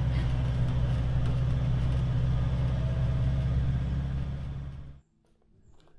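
A pickup truck's engine running steadily, a low drone with a hiss over it, stopping abruptly about five seconds in.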